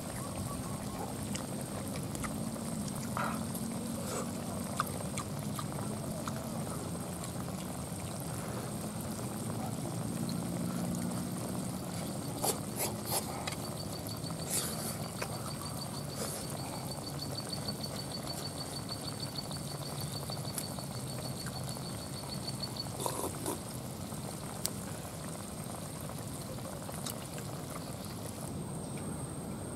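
Eating sounds: slurping curry from a coconut-shell bowl, chewing, and wooden chopsticks clicking against the shell a few times near the middle. A high, rapid trill runs for about eight seconds through the middle over steady outdoor background noise.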